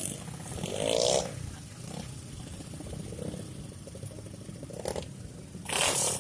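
Motorcycle engine running at idle with a loud rev blip about a second in. A short, loud rushing noise comes near the end.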